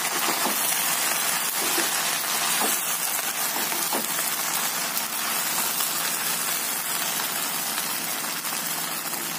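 Steady sizzling of pasta frying in a hot pan as it is stirred with a wooden spatula.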